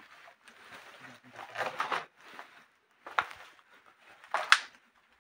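Irregular footsteps and scuffing, with two sharper clicks about three and four and a half seconds in, the second the loudest.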